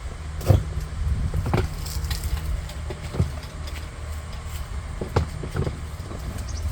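Scattered knocks and clunks as a heavy kayak tackle box is hefted onto a hanging scale, about five sharp knocks over a few seconds, over a steady low rumble.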